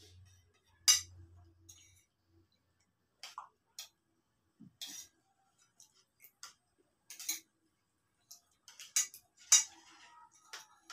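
Spoons clinking and scraping on plates as several people eat, in scattered short clicks every second or two, the loudest about a second in and twice near the end.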